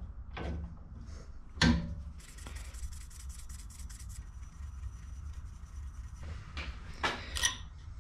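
A sharp metal clank from the bench vice's sliding handle, then a felt marker scribbling quickly back and forth on a steel plate, about eight strokes a second for two seconds, as the corner is coloured for marking out. A couple of sharp knocks and scrapes near the end as a washer and scriber are set on the plate.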